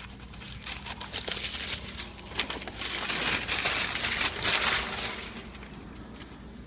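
Plastic packaging crinkling and rustling as game components are handled, with small clicks, loudest in the middle and dying away near the end.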